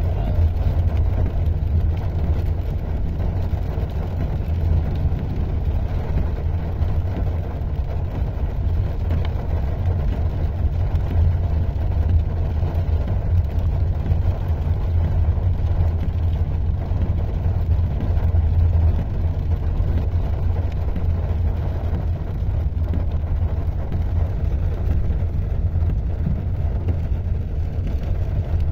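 Steady low rumble of a car heard from inside its cabin, with the engine running and rain on a wet road outside.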